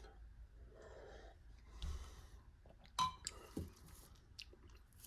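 Quiet sipping and breathing between tastes of an isotonic drink from a plastic pouch: soft breaths, one sharp click about three seconds in, and small mouth and pouch clicks.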